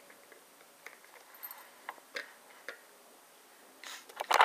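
A few faint, scattered clicks, then a louder short cluster of clicks and rustling near the end.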